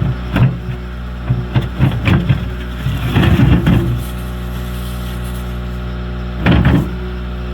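Skid steer engine running steadily, with several loud bursts of clanking and scraping from rocks being moved.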